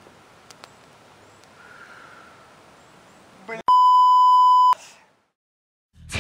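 A loud, steady electronic beep lasting about a second, cutting off sharply. Before it there is only faint background noise, and after it a second of silence.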